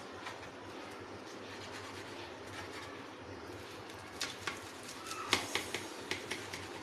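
Kitchen knife cutting through toasted flatbread doner wraps on a metal plate. There are a few short sharp clicks and taps about four seconds in and a cluster between five and six seconds in, over a faint steady background hum.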